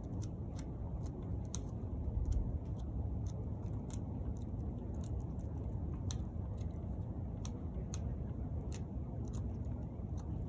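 Irregular sharp snips of pruning shears cutting dormant grapevine canes, about two or three a second, over a steady low rumble.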